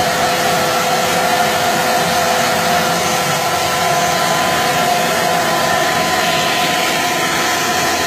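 Titan wet and dry vacuum running steadily, a steady motor whine over rushing air as it draws dust through a Mirka hand sander.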